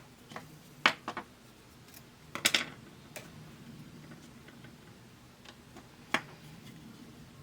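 Small plastic pop bumper parts being handled and set together: scattered sharp clicks and clacks, a few about a second in, a loud cluster at about two and a half seconds and one more near six seconds.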